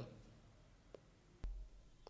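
Near silence: faint room tone, with a small click about a second in and a soft low thump half a second later.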